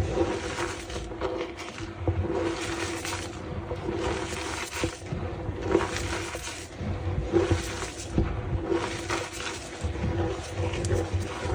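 A reformed block of gym chalk being crushed, crunching and crumbling with squeaky creaks in repeated squeezes about once a second.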